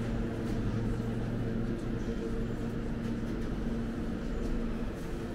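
Steady low vehicle hum with a few held tones over a noisy background.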